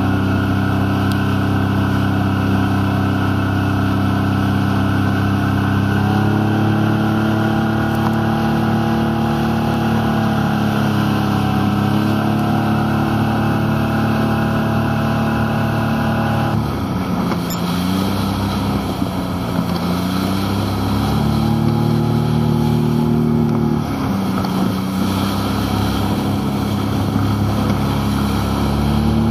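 Outboard motor of a RIB running at speed over a steady rush of wind and water. Its engine note shifts several times as the throttle changes and dips briefly a little past halfway.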